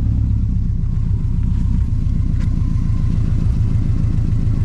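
2005 Subaru Outback XT's turbocharged 2.5-litre flat-four engine idling steadily, warm, through a 3-inch exhaust that runs only through a Vibrant Ultra Quiet resonator with no muffler.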